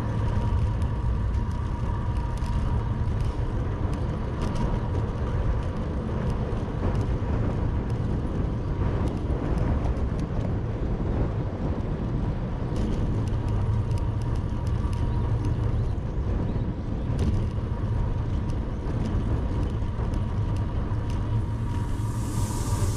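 Steady wind and road rumble recorded from a moving bicycle, with scattered light clicks and a hiss that swells near the end.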